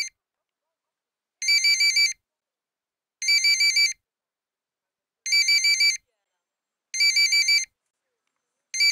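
An electronic telephone ringtone: short trilling rings of about four quick pulses each, repeating five times at intervals of a second and a half to two seconds, with nothing between the rings.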